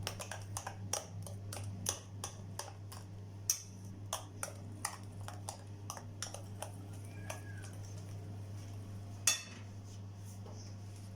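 A spoon stirring a thick banana, milk and coconut mixture in a bowl, clinking and tapping against the bowl several times a second, then more sparsely, with one sharper knock near the end. A low steady hum runs underneath.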